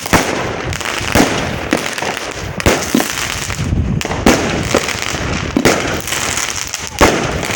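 Fireworks going off: a run of sharp bangs, about two a second, with crackling between them and the loudest bang near the end.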